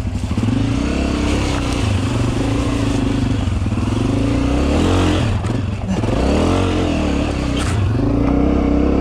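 Dirt bike engine heard up close from the rider's own bike, revving up and down on a slippery snow-and-mud trail climb. The revs drop briefly about five and a half seconds in and then pick up again.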